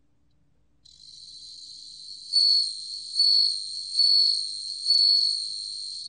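Japanese bell cricket (Meloimorpha japonica) singing at 27 °C. A faint, steady, high trill starts about a second in, then four loud, high chirps follow at a little under one a second. The song stops suddenly at the end.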